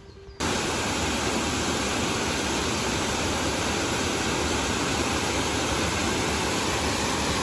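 Water rushing over a low weir in a rocky river: a loud, steady rush that starts abruptly about half a second in.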